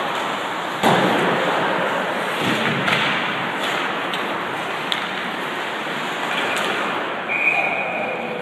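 Ice hockey play in an arena: a steady hiss of skates and rink noise, with a loud sharp clack about a second in, typical of a puck or stick hitting the boards, and a few smaller knocks after it. Near the end a brief high tone rises above the noise.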